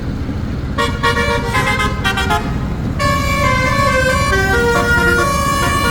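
A bus's telolet basuri musical horn playing a tune: a few short blasts about a second in, then from about three seconds a run of held notes stepping up and down in pitch, over a steady low rumble.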